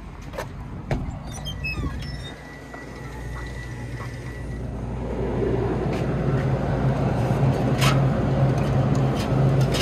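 A shop door clicking open, then a steady low hum of refrigerated drink coolers that grows louder from about halfway through.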